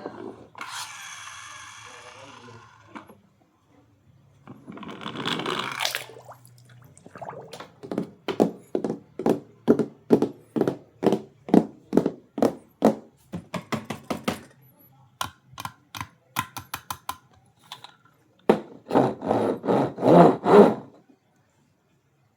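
A run of sharp clicks and knocks, about two a second for several seconds, then a quicker patter of clicks and a louder, denser stretch of knocking near the end.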